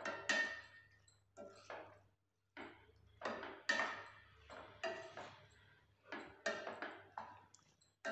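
Metal ladle scraping and clinking against a stainless steel pan while stirring a thick masala: repeated short strokes, some with a brief metallic ring, with a short pause about two seconds in.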